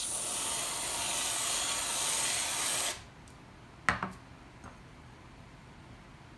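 Aerosol whipped cream can spraying in a steady hiss for about three seconds, cutting off abruptly. A sharp knock follows just before four seconds in as the can is set down on the tiled counter.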